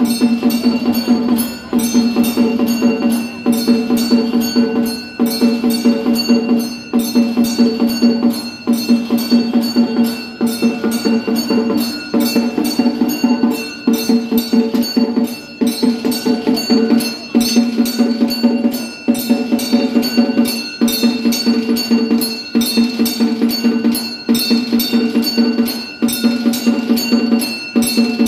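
Brass temple bell rung rapidly and without stopping, the clapper striking several times a second in runs broken by brief dips, over a steady ringing tone.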